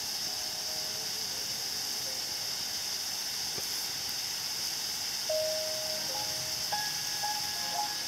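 A steady high-pitched hiss throughout, with a few soft held notes of background music coming in about five seconds in.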